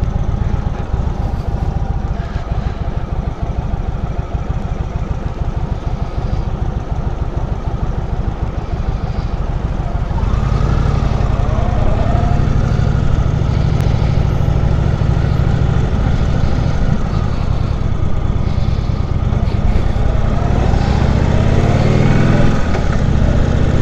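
Indian Chief Vintage's air-cooled V-twin engine running at low revs with distinct, rapid firing pulses. About ten seconds in it grows louder and settles into a steadier note as the bike gets under way.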